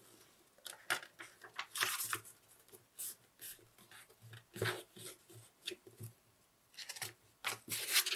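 A paperback book's pages being pushed down flat one at a time, alternating from front and back, while the book stands on its spine. This breaks in the spine so it will not crack. The result is a string of irregular paper rustles and brushing of hands over the pages, some with a soft bump against the desk.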